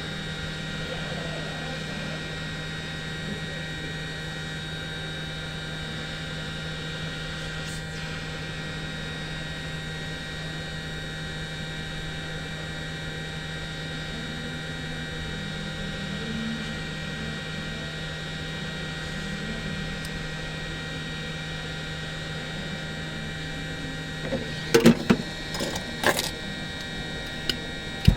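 Hot-air gun blowing steadily while heating a phone screen, a constant motor hum with a steady whine. A few sharp clicks and knocks near the end.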